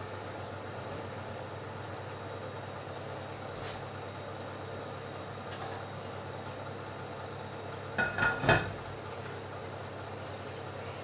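An enamelled pot lid set back onto a stainless steel steamer pot, clanking three or four times in quick succession with a brief metallic ring about eight seconds in. A steady hum runs underneath, with a few faint clicks earlier.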